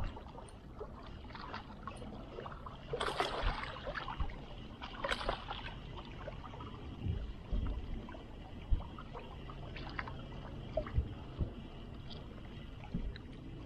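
Small waves lapping and splashing against shoreline rocks, with two louder splashes about three and five seconds in and a few light clicks later on.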